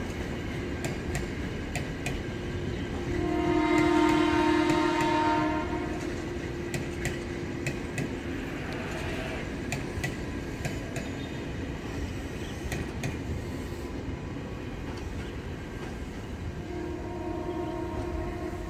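KRL commuter electric trains running through a station with a steady rumble and scattered clicks of wheels over rail joints. A train horn sounds about three seconds in and lasts roughly three seconds, the loudest thing here. A second, weaker horn sounds near the end.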